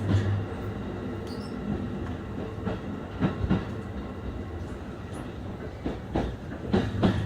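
E531 series electric train running at reduced speed under a strong-wind restriction, heard from inside the carriage: a steady rolling rumble with a low hum. The wheels knock over rail joints a few times, the knocks coming in close pairs.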